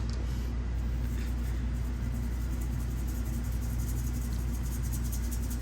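A steady low rumble with no other clear sound.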